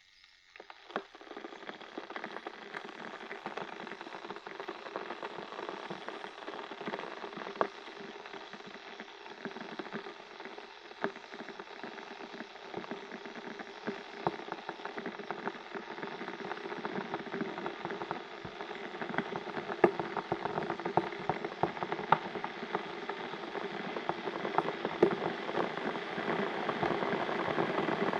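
Kettle heating water toward the boil: a hiss with many small crackles and pops that starts about a second in and grows steadily louder.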